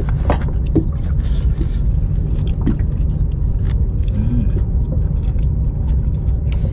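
Steady low engine drone running without change, with a few faint clicks and knocks over it.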